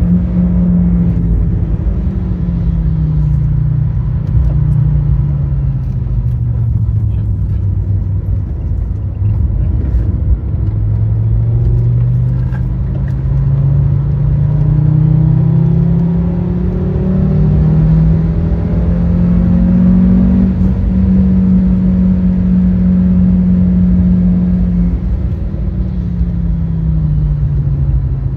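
Fiat Stilo Abarth's 2.4-litre 20-valve five-cylinder engine driven on track. The revs fall over the first several seconds, climb steadily from about ten seconds in and hold high, then drop again near the end, over a steady low rumble.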